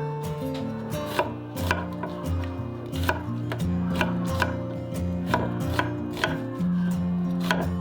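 Sharp, irregular knocks of food prep, like a knife chopping on a board, about two or three a second, over background music with steady held notes.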